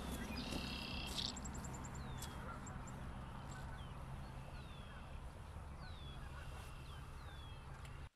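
Wild birds calling: a buzzy trill about half a second in, then a string of short, high, downward-sliding chirps, over a steady low rumble.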